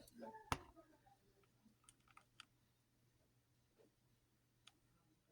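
Near silence with a few faint, short clicks and taps, the sharpest about half a second in and a few smaller ones after it.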